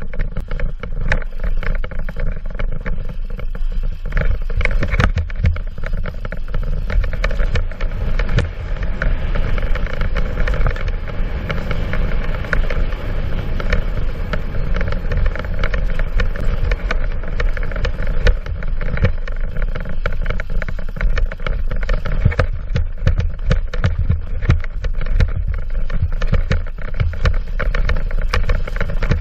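Ride noise from a mountain bike on a rough dirt trail: wind buffeting the microphone and tyres rolling over dirt, with frequent clicks and knocks as the bike rattles over the ground.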